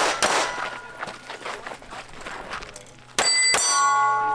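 Pistol shots, one at the start and two in quick succession near the end, each followed by steel targets ringing with a clear metallic tone.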